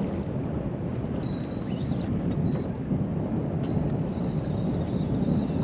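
Wind rumbling steadily on the microphone on a small boat.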